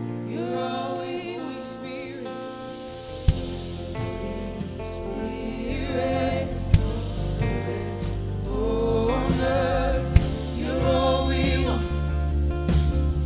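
Contemporary worship song with several voices singing long, wavering held notes over keyboard chords; a bass and drum hits come in about three seconds in and the music builds.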